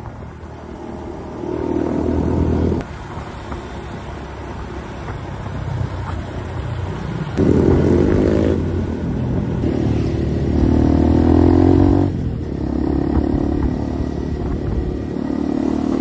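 Motorcycle engine running under way, its note climbing in several surges of acceleration and dropping back between them as the throttle opens and closes.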